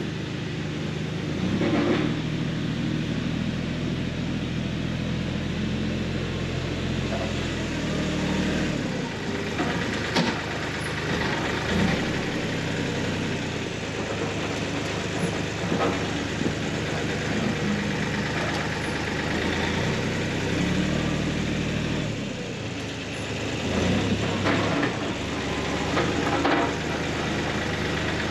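Bobcat CT2040 compact tractor's three-cylinder diesel engine running, its speed stepping up and down as the front loader scoops and dumps dirt. There are a few sharp knocks from the loader and bucket along the way.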